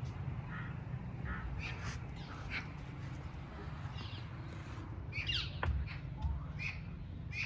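Birds calling outdoors: short, scattered calls repeating throughout, over a steady low rumble.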